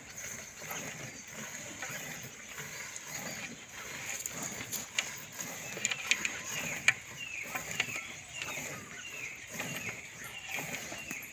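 Cow being hand-milked: milk squirting into a steel pail in a steady rhythm of about two squirts a second, clearest in the second half. A few sharp clicks near the middle.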